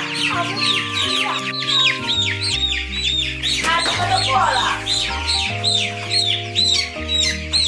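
A crate of young chickens peeping busily: a constant run of short, high chirps, several a second, over background music.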